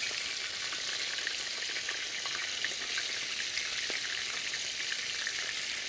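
Breaded oysters deep frying in hot vegetable oil in a steel plow-disc discada: a steady sizzle with small scattered crackling pops.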